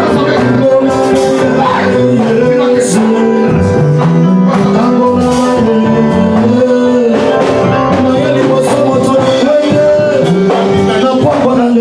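Continuous music with a moving bass line, guitar and drums, with some singing.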